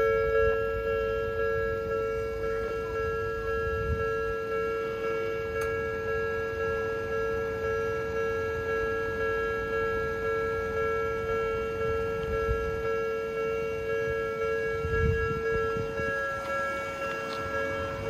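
Japanese railway level-crossing alarm ringing its repeated 'kan-kan' warning: a steady, evenly pulsing two-tone chime.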